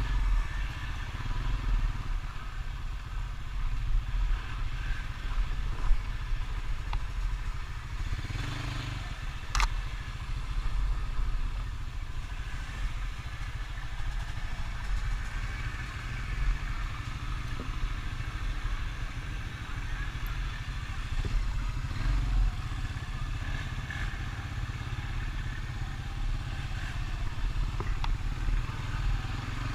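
Honda Rancher ATV engine running steadily as it is ridden, with some clatter and a few sharp knocks.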